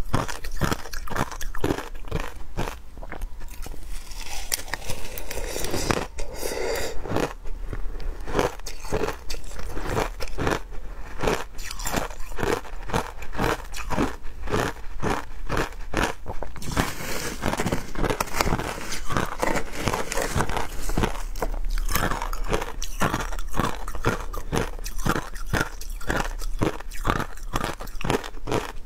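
Chunks of frozen matcha ice being bitten and chewed, a steady run of sharp crunching cracks, several a second.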